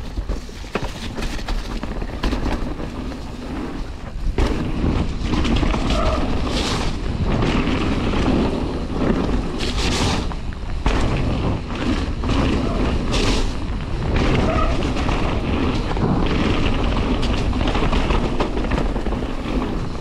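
Mountain bike riding fast down a rough dirt trail: wind rushing over the microphone, with tyre noise and a steady clatter of knocks and rattles from the bike over bumps.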